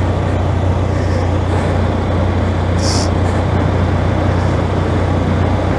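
Motorcycle engine running at a steady pitch while riding, under a constant rush of wind and road noise. A brief high hiss comes about three seconds in.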